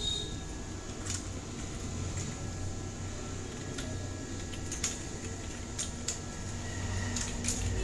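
Computer keyboard keys clicking in a few scattered, irregular keystrokes over a steady low hum.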